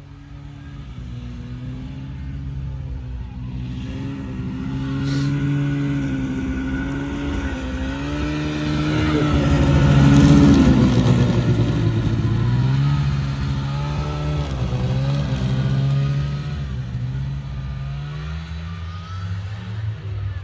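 Small engine of an Arctic Cat Kitty Cat children's snowmobile running and being ridden, its pitch wavering up and down with the throttle. It gets louder, is loudest about halfway through, then fades somewhat.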